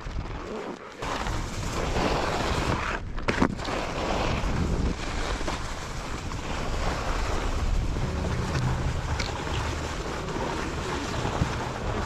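Skis sliding and scraping over packed snow at speed, with wind rushing over the microphone; a brief knock about three and a half seconds in.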